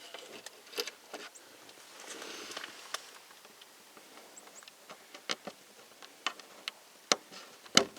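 Scattered light clicks and taps of hand work as small plugs are fitted into freshly drilled holes in a truck topper, with a soft rustle of handling around two seconds in.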